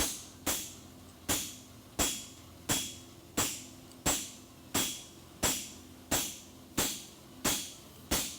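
Hand hammer striking an aluminum horseshoe on an anvil in a steady rhythm, about three blows every two seconds, some with a faint metallic ring: the bar shoe being flattened before it is fullered.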